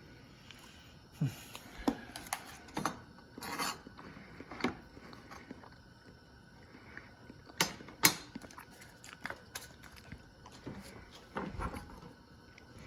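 Irregular light clicks and knocks of food, utensils and dishes being handled in a kitchen, with a sharper knock about eight seconds in.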